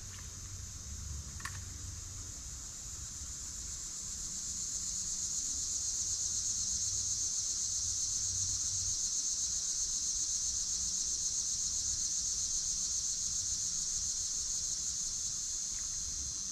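Cicadas droning, a steady high-pitched buzz that swells over the first few seconds and then holds.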